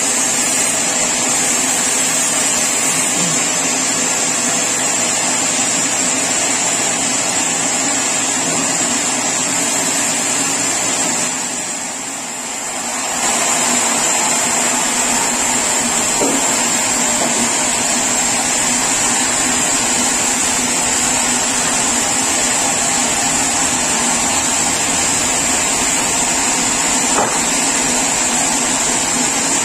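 Sawmill saw running steadily while sawing mahogany, with a constant high whine over the machine noise; it eases off briefly about twelve seconds in, then comes back to full level.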